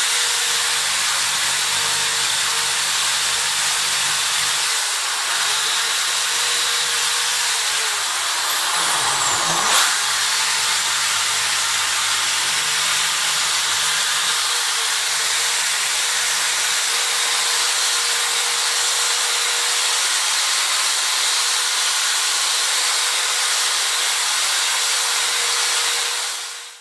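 Electric power tool running steadily with a dense, hissing whir; its pitch dips and comes back once about nine to ten seconds in.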